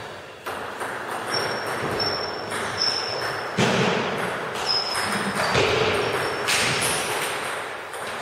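Table tennis play in a large, echoing hall: the hollow knocks of a celluloid ball off bats and table, and sneakers squeaking briefly on the wooden floor, with a few louder knocks in the second half.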